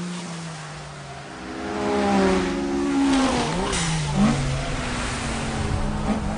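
Engines of two racing cars, a Suzuki Cappuccino chased by a Toyota AE86, revving hard. The revs sag, then climb again. About three and a half seconds in, the pitch swoops quickly down and back up, with a sharp loud blip just after four seconds, before the engines settle into a steadier drone.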